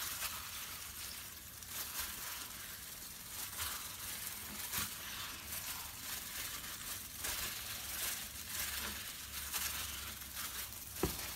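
Soft crinkling and rustling of disposable plastic gloves as hands roll dough up into a log on a floured wooden board, over a steady hiss.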